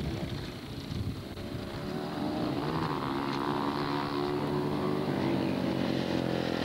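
Dirt-track racing motorcycle engine growing louder as the bike comes closer, its pitch falling slightly near the end as it goes past, with other bikes running further off.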